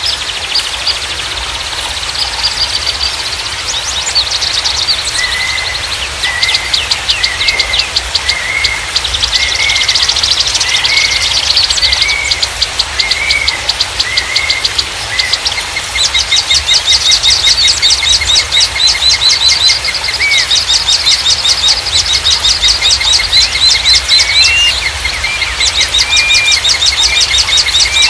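Small songbirds singing: fast, rapidly repeated high chirps and trills, with a second bird giving a string of short up-and-down whistled notes, about one and a half a second, over a steady hiss.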